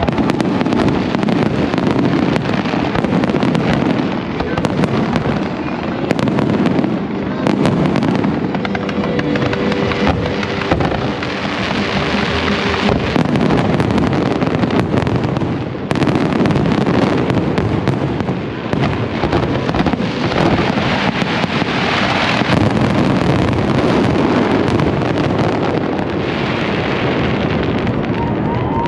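Fireworks display going off in a dense barrage: many overlapping bangs and crackles from aerial shells follow one another with no break.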